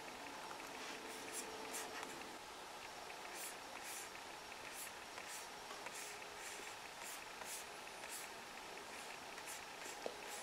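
Faint, irregular soft clicks and scratches of fingers on a MacBook Air trackpad while paging through photos, over quiet room tone.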